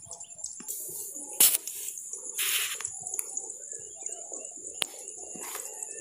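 Birds calling over a steady high-pitched hiss, broken by a few sharp clicks and a short rustle about two and a half seconds in.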